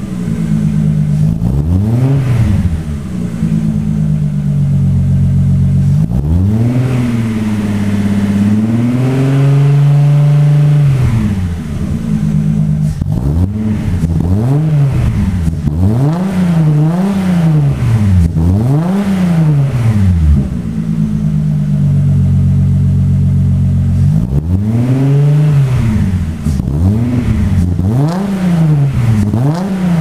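The Audi V6 swapped into a VW T3 Doka is revved repeatedly through a new stainless exhaust whose mufflers are only slipped on, not yet fitted. It rises and falls over and over, with one longer hold at raised revs a third of the way in and a run of quick blips in the middle. The sound echoes strongly in the workshop hall.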